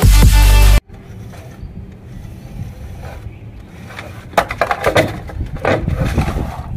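Electronic dance music stops abruptly under a second in. After a few seconds of faint background, a wooden plank knocks and scrapes against a board and the concrete floor as it is propped up as a ramp, making several irregular clattering knocks toward the end.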